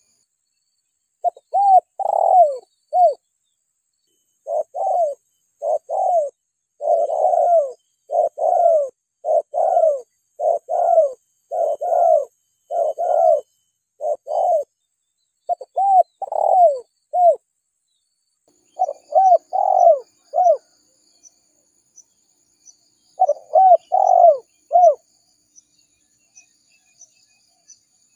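Spotted dove (tekukur) cooing: repeated phrases of short coos, each note dipping in pitch, broken by a few pauses. It is a lure call for drawing wild spotted doves. Faint high chirping runs underneath.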